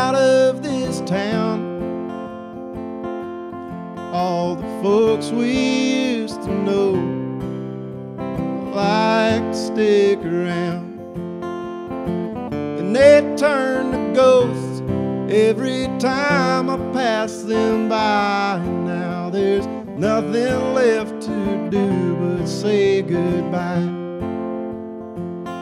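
Acoustic guitar strummed steadily under a man's voice singing a slow, country-style melody.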